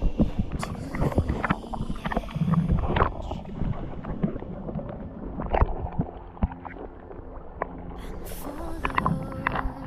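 Sea water sloshing and bubbling around a snorkeler's camera, with many irregular clicks and knocks and a faint steady low hum.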